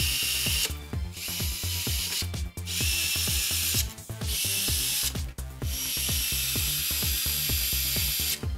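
Panasonic cordless electric screwdriver driving screws into a metal amplifier panel. Its motor runs with a steady whine in five runs of about a second each with short pauses between, the last run longest.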